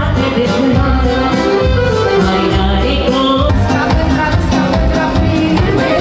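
Live band playing Romanian popular music with a singer's voice over keyboards and drums, steady and loud throughout.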